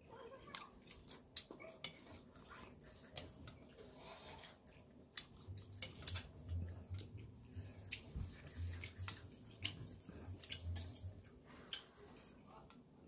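A person eating rice-noodle soup close to the microphone: a run of sharp, wet clicks and smacks of chewing. A low hum runs through the middle few seconds.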